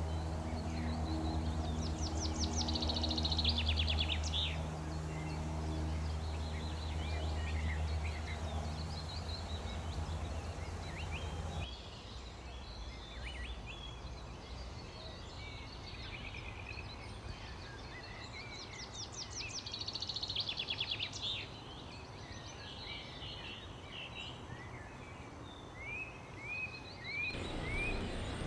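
Woodland birdsong: small birds singing, with rapid trills twice and scattered chirps and short rising calls. For roughly the first twelve seconds a steady low hum lies under the birds, then stops.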